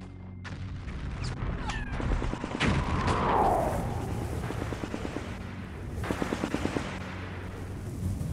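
Battle sound effects: gunfire cracks and a rapid machine-gun burst over a low rumble, with a falling whistle about three seconds in.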